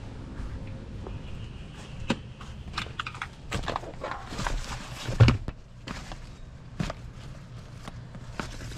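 Handling of riding gear at an open pickup door: rustling of fabric and padded plastic body armour with irregular clicks and knocks, and one heavier thump about five seconds in.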